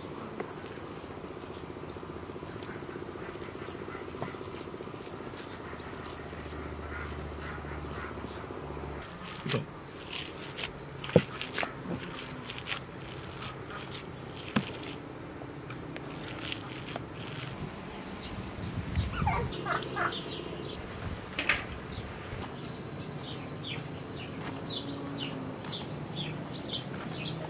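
Hands squishing and kneading minced kofta mixture in a bowl, with scattered sharp clicks and knocks, over a steady drone of insects. Around twenty seconds in comes a louder cluster of knocks and rustling, and near the end short bird chirps.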